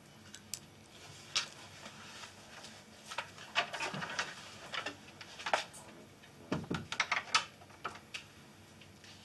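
Irregular light knocks and clicks of objects being handled at a kitchen counter, busiest in the middle, with a couple of duller thumps.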